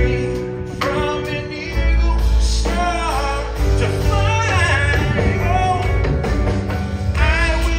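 Live band music played through concert loudspeakers: a drummer sings lead into his microphone while playing, over drums, upright bass and guitar.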